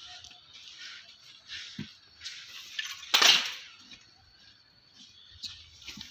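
Cadets' parade drill with rifles: one loud, sharp burst about three seconds in, amid fainter scattered sounds.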